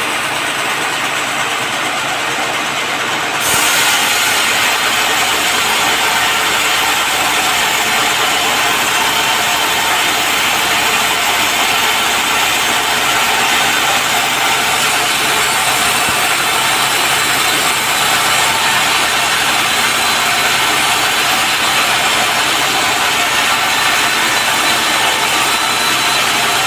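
Sawmill saw cutting through a teak log, with a loud, steady mechanical noise. It gets louder and harsher about three and a half seconds in and then holds steady.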